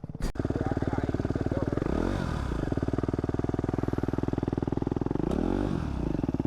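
Motorcycle engine idling with a steady, fast pulse, its note swinging briefly twice, about two seconds in and again near the end, as the throttle is blipped.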